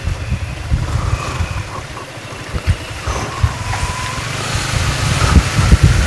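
Motorcycle engine running at low speed, with wind rumbling on the microphone; it grows louder over the last couple of seconds.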